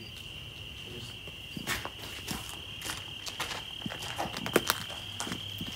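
Crickets trilling in a steady high chorus, with irregular footsteps scuffing and clicking over a gritty floor from about a second and a half in.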